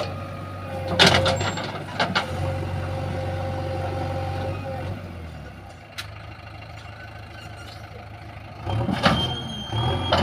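JCB 3DX backhoe loader's diesel engine running steadily, settling to a lower, quieter note about halfway through, with sharp metallic knocks about a second in, again a second later, and twice near the end.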